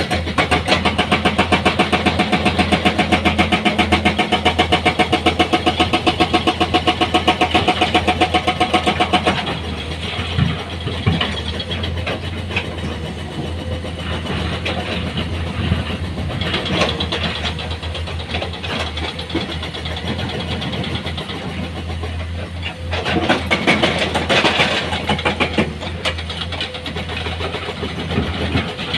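Heavy diesel engine of earth-moving equipment running, with a loud, fast even pulsing for about the first nine seconds, then settling to a quieter, steadier run with a louder stretch a little past the middle.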